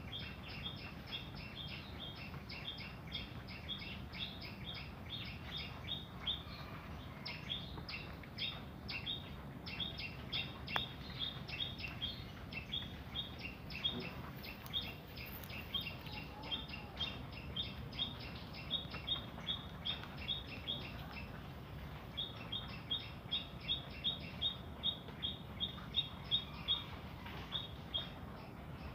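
A small bird chirping over and over, about three short chirps a second, with a few brief pauses, over a faint low steady hum.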